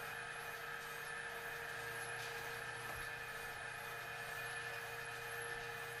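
Homemade sawmill's carriage drive running steadily as it feeds the cant forward toward the saw blade: an even mechanical hum with a constant whine.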